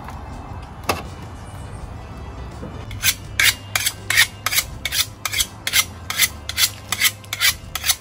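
Knife being sharpened: the blade drawn in quick, even strokes along a sharpening rod, about three strokes a second, starting about three seconds in.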